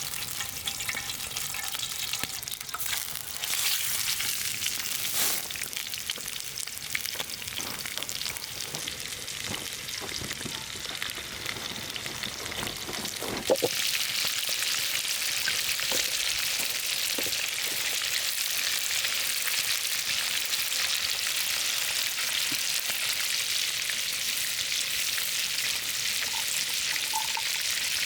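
Food frying on a hot griddle: a steady sizzle with small crackles. About halfway through a short knock comes, and the sizzle turns louder and denser.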